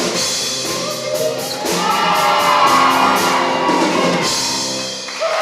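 A choir and backing band ending a song on long held chords, with quick repeated drum hits under them, and a few whoops from the audience.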